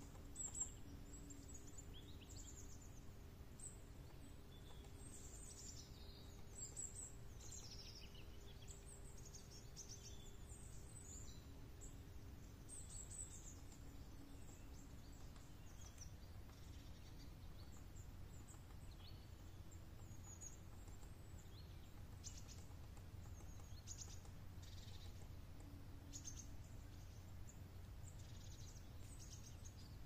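Faint, high-pitched chirps and calls of small songbirds scattered throughout, thickest in two stretches, over a low steady rumble.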